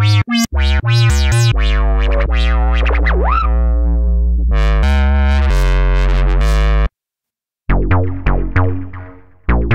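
GForce Axxess software synthesizer playing a bass preset: a quick run of short low notes, then held bass notes with a resonant whistle sweeping up and back down about three seconds in, cutting off near seven seconds. After a short gap, a second preset plays short plucked notes that die away quickly.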